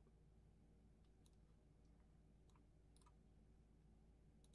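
Near silence with a few faint, scattered clicks from working a computer, copying and pasting lists.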